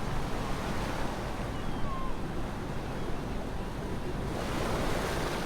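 A steady rushing noise that starts abruptly, with a couple of faint short chirps about two seconds in.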